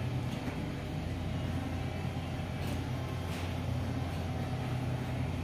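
Steady low rumble and hum of supermarket background noise, with two faint clicks about halfway through.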